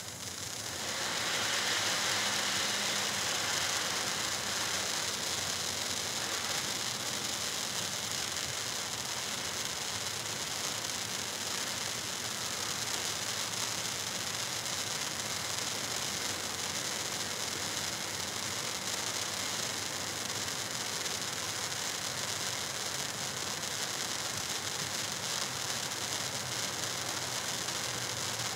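Handheld firework fountain wand spraying sparks with a steady hiss, which swells over the first couple of seconds and then holds level.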